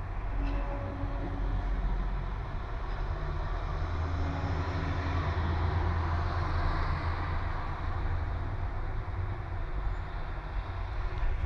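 Low, steady urban traffic rumble, with a passing vehicle swelling up and fading in the middle. A faint, low horn-like tone sounds briefly a few times in the first half.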